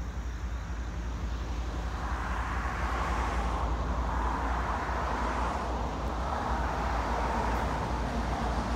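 Approaching train: a broad rumble that slowly gets louder over a steady low drone.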